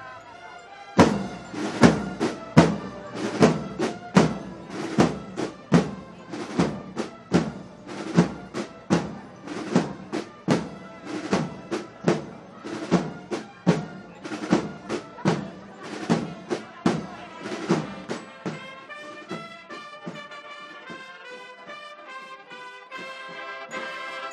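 Brass band playing a processional march: brass chords over drums striking a steady beat about twice a second. The drums stop about 18 seconds in, leaving held brass chords.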